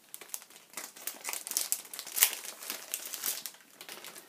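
Clear plastic shrink-wrap crinkling as it is peeled off a notebook box: irregular crackling, loudest about two seconds in.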